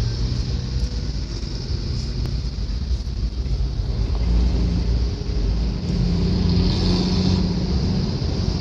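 Steady road and engine noise heard from inside a moving vehicle on an expressway: a low drone with tyre hiss, with trucks and cars driving close alongside. It grows a little louder about halfway through.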